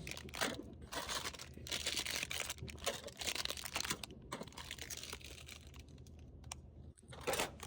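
Plastic snack bags crinkling and rustling as they are handled and loaded into a vending machine, with scattered light clicks, busier in the first few seconds.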